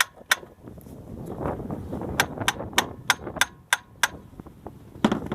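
Sharp metallic taps and knocks as a replacement alternator is worked into its mounting brackets on a 4.3 L V6 engine, a quick run of about three taps a second with a louder knock near the end and some scraping of metal on metal.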